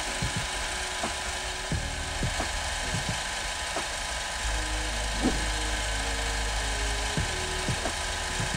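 Small lathe running steadily, its motor giving a constant whine over a hiss with a low hum, while a fine drill bores a small hole in the end of a spinning brass rod; light ticks come through now and then.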